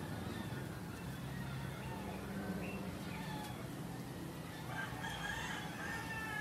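Honeybees buzzing around a flowering Leichhardt tree (Nauclea orientalis), a steady low hum, with birds chirping and a rooster crowing about five seconds in.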